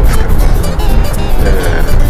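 Background music over a steady low rumble.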